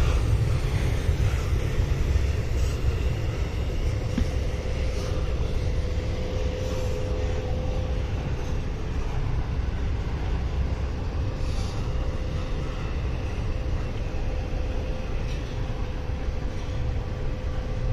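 Intermodal freight train rolling past on a mountain grade: a steady low rumble of the cars, with a thin steady tone held over it and a few faint clicks from the wheels.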